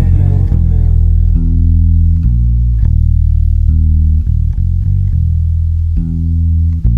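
Band recording in which a bass guitar plays a line of held low notes, mostly on its own, with a sung line trailing off at the start.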